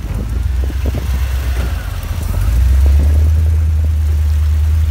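Off-road side-by-side's engine running as it drives through muddy water, with water splashing against the tires and body. The engine hum gets louder and steadier about two and a half seconds in.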